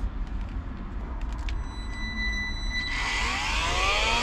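A few light handling clicks, then about three seconds in a handheld cordless vacuum cleaner switches on: its motor spins up with a rising whine over a rush of air and settles into a steady run.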